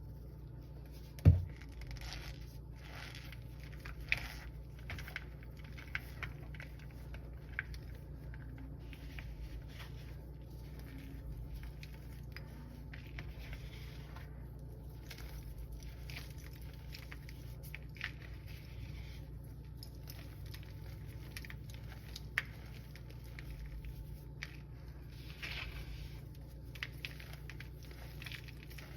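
Gym chalk being crushed and squeezed, giving a continual run of short squeaks, crunches and crackles, with one loud knock about a second in. A steady low hum lies underneath.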